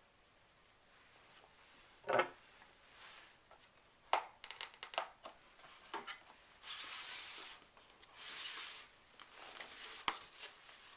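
Cardboard and plastic packaging being handled during an unboxing: a knock about two seconds in, a run of small clicks and taps, then two longer rustling slides and a sharp click near the end.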